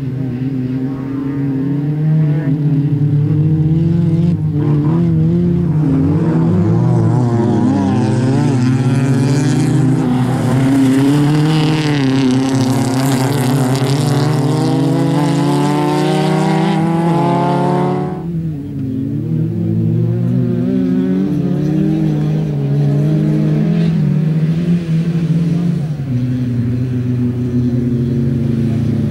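Racing car engines at full throttle on a dirt off-road track. One engine note climbs steadily for several seconds, then drops off abruptly, and the cars keep running hard after that.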